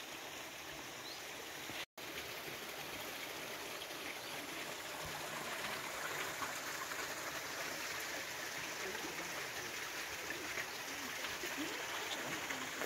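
Running water, a steady stream-like rush, with a brief dropout about two seconds in.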